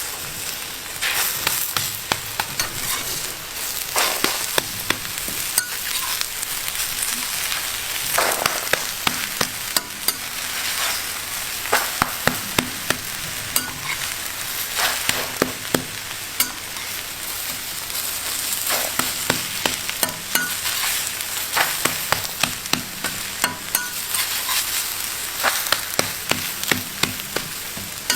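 Food frying with a steady sizzle, punctuated by frequent sharp clicks and scrapes of a cooking utensil stirring it.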